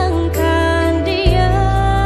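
Slow, tender love-song music with long held notes; the bass moves to a new chord a little over a second in.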